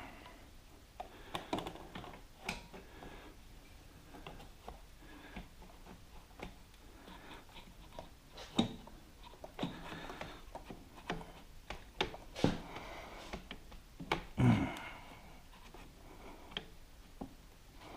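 Scattered light clicks and knocks of metal parts and tools being handled as a shock absorber is lined up with its mounts, with a few louder knocks in the second half.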